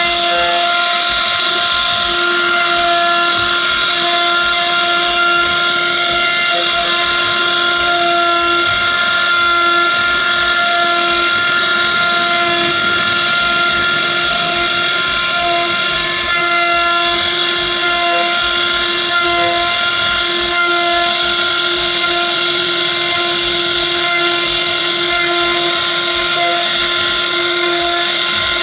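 CNC router spindle running at a steady high whine while it cuts wood, with a constant hiss of cutting underneath.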